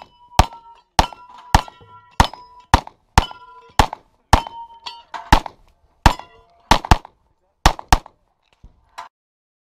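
Rapid pistol fire, about two shots a second, many of them followed by the clanging ring of a struck steel target. The string stops about eight seconds in, and two fainter knocks follow.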